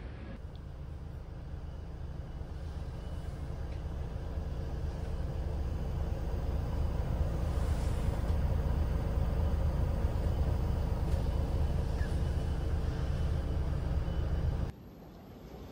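Low rumble of a coach's engine and road noise, heard inside the passenger cabin, growing steadily louder over the first several seconds and then holding. Near the end it cuts off abruptly to quieter ambience.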